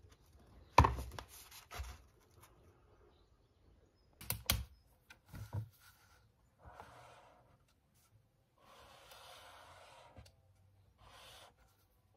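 Several sharp knocks as a book is handled on a wooden desk, followed by three scratchy strokes of a highlighter marking its pages.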